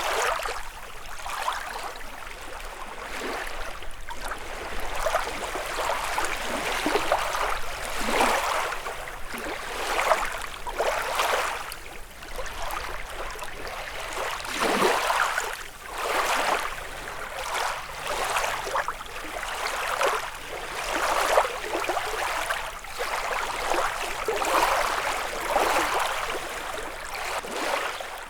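Small lake waves lapping against the shore, each one washing in with a splash every second or two at an uneven rhythm.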